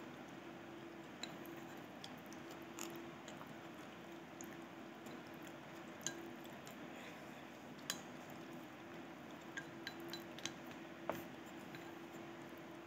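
Wooden chopsticks clinking and tapping against a ceramic rice bowl while eating, a few short sharp clicks scattered every second or two, over a faint steady low hum.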